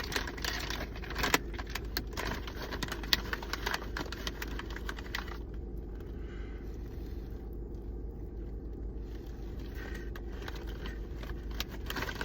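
Irregular crinkling and crackling of a plastic snack bag being handled and opened, quieter for a few seconds in the middle.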